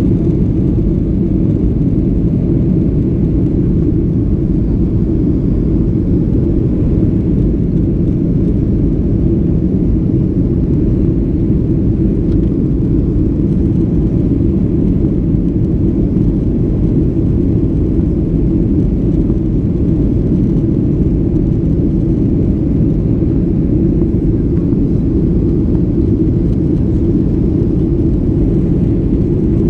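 Boeing 737-800 in its climb after takeoff, heard from inside the cabin: a loud, steady low rumble of engine and airflow noise that does not change.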